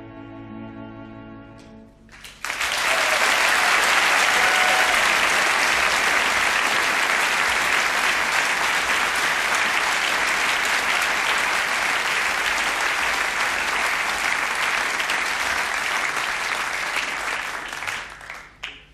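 An orchestra's last held chord fades out. About two and a half seconds in, a concert audience breaks into loud applause, which keeps up evenly and then dies away near the end.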